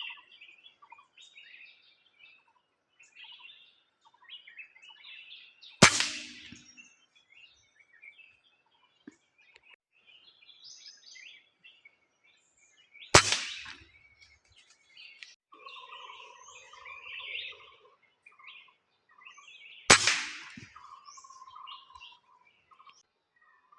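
A PCP air rifle fired three times, about seven seconds apart, each a sharp crack. Small birds chirp and call throughout.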